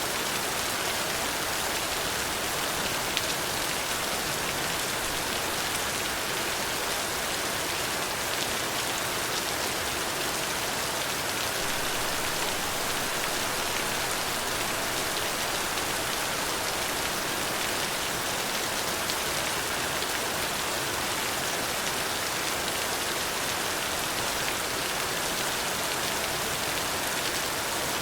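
Steady, even rain falling, a dense hiss of drops with a few single drops ticking out now and then.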